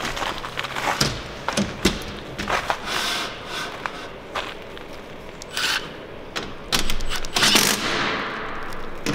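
Cordless impact driver with a half-inch socket tightening solar panel clamp bolts in a few short bursts, the longest starting about seven and a half seconds in. Between them come clicks and knocks of metal clamps and panels being handled.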